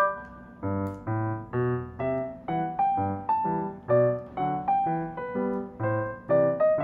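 Background piano music: single notes and chords struck at an even pace of about two a second, each dying away.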